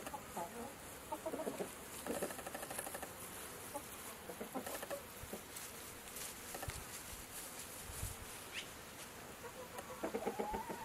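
Chickens clucking in short, scattered bursts.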